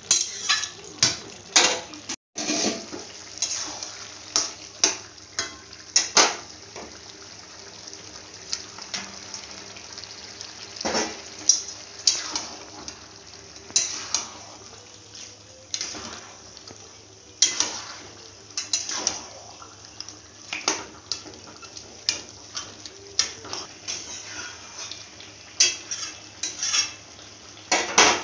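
Steel spoon scraping and clinking irregularly against a metal kadai while stirring a simmering curry, over a steady low hum.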